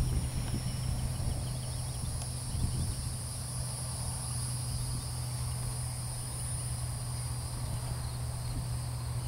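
Insects chirring in a steady high-pitched drone, over a steady low hum.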